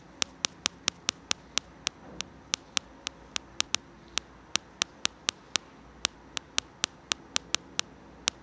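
A steady series of sharp clicks, about four a second, over faint background noise.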